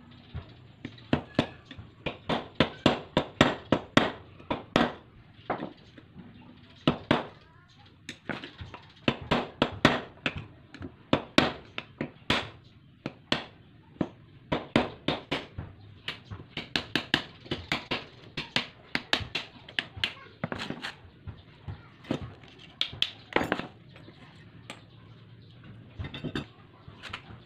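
Hammer striking a screwdriver or punch held against a motorcycle's steering stem, knocking off the old knuckle (steering-head) bearing race: dozens of sharp metal-on-metal blows in quick runs with short pauses.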